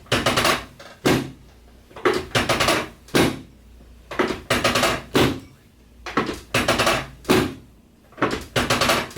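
Chiropractic work on a patient lying face down: bursts of rapid, clattering knocks, about one burst a second, each made of several quick strikes in a row.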